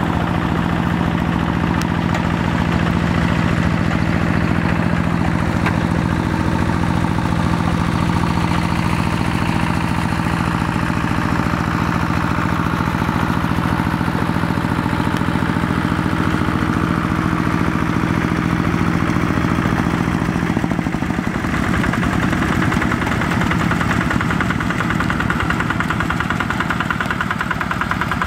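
Quick G1000 two-wheel hand tractor's single-cylinder diesel engine running steadily as it works a flooded rice paddy. About three-quarters of the way through, its even note turns rougher.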